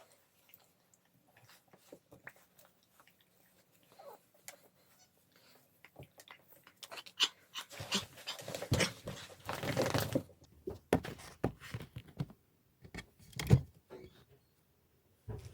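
A pet dog close to the microphone, panting and moving about. The panting is heaviest for a few seconds in the middle, with scattered small clicks and one sharp knock near the end.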